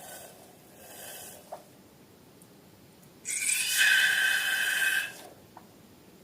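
Air rushing out of a balloon's neck: a loud hiss with a buzzy whistle lasting about two seconds, starting about three seconds in. It follows a shorter, fainter hiss near the start and another around a second in.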